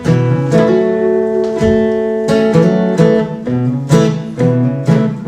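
Acoustic guitar strumming chords, with sharp strokes roughly every half second to a second and the chords ringing between them.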